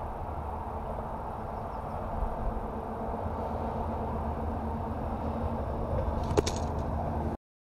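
Steady low rumble of road traffic with a faint hum running through it, and a sharp click about six seconds in; the sound cuts off abruptly near the end.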